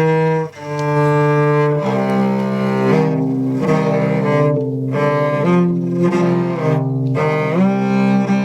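Bowed string instruments playing a slow tune in long held notes, often two notes sounding together, changing pitch about once a second.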